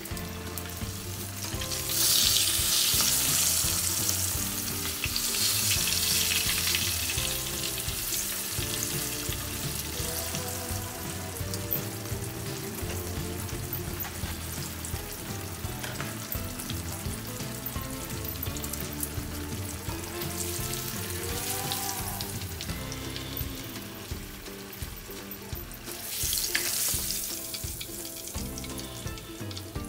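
Salmon steaks frying in hot oil in a pan, a steady sizzle that swells louder early on and again near the end as a steak is lifted out with tongs. Background music plays under it.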